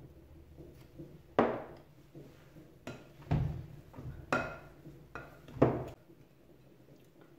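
Potato masher knocking against a glass mixing bowl while mashing boiled potatoes: about five sharp clinks at irregular intervals, each ringing briefly.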